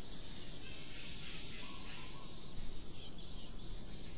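Steady outdoor nature ambience: an even background hiss with a few faint, short, high chirps.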